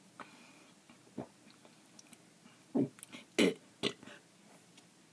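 A person gulping, with short, sharp throat and mouth sounds: a faint one about a second in, then three louder ones in quick succession around three seconds in.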